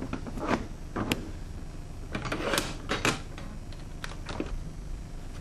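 A series of sharp clicks and knocks, about eight of them at uneven intervals.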